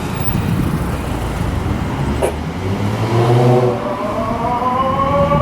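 Car engine running with a low rumble, then accelerating from about three seconds in, its pitch rising steadily.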